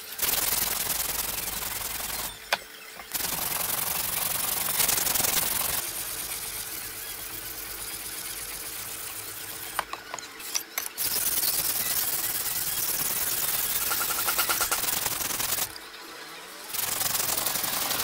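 Wet, gritty abrasive rubbing on a Japanese waterstone in long continuous strokes, stopping briefly about two and a half, ten and sixteen seconds in.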